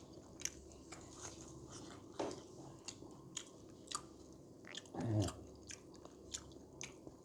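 Close-up chewing and biting of food with a mouth open to the microphone, full of short sharp crunchy clicks. Twice, about two and five seconds in, a brief sound slides down in pitch.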